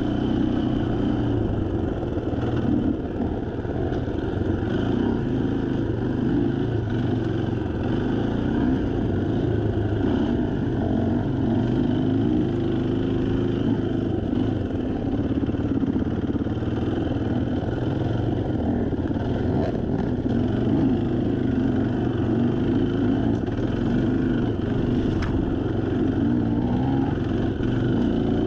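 Off-road dirt bike engine running continuously while riding a wooded single-track trail, at a steady level throughout.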